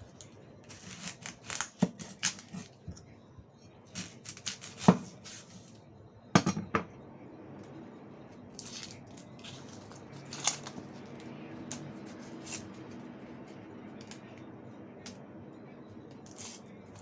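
A run of sharp clicks and knocks from kitchen utensils being handled. The loudest knock comes about five seconds in and a close pair follows a second and a half later, then a faint steady hum with a few scattered clicks.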